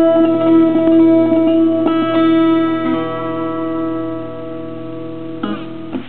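Acoustic 12-string guitar played fingerstyle, plucking a last run of notes and then letting a final chord ring and fade. A short scrape near the end comes just before the strings stop sounding.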